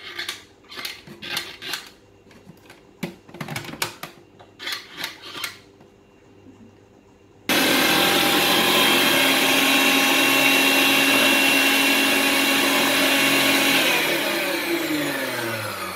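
Electric food processor motor switching on abruptly about halfway through and running steadily, grinding fresh mint, coriander, green chillies and garlic with yogurt into green chutney. Near the end it is switched off and spins down with a falling pitch.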